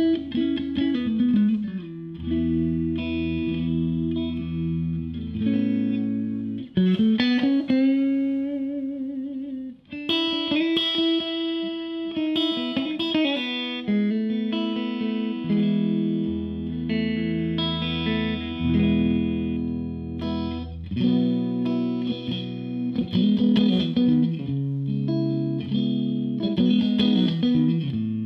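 Odlair Stratocaster-style electric guitar played through a Marshall JTM combo amp: held chords and single-note lines, with a falling bend about a second in and a rising bend around seven seconds in. That bent note is then held with a wide vibrato.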